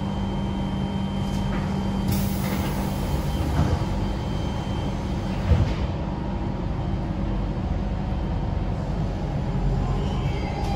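Siemens C651 MRT train pulling out of the station, heard from inside the car: a steady running hum, a hiss about two seconds in, and two short knocks a couple of seconds apart.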